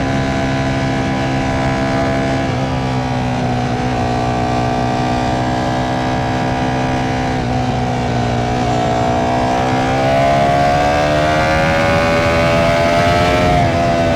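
Ducati Panigale V4's V4 engine running under way at a steady cruise. Its pitch dips slightly twice, then rises gradually over a few seconds near the end as it accelerates, and drops back just before the end.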